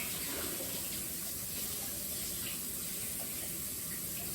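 Tap water running steadily into a sink as mud is rinsed off a solar light stake held under the stream.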